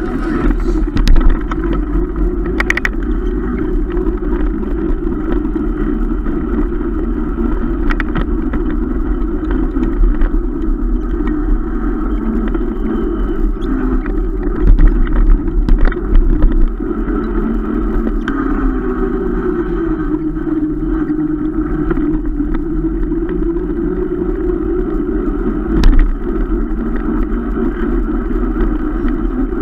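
Wind rushing over the microphone of a camera riding on a mountain bike, together with the steady rumble and rattle of the bike rolling over paving blocks. A few loud knocks stand out: one about a second in, a cluster around the middle and one near the end.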